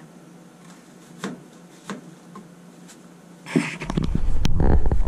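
Kitchen knife cutting a whole onion in half on a cutting board: a few faint clicks, then from about three and a half seconds in, loud knocking and handling noise with a deep rumble as the blade goes through and the halves come apart.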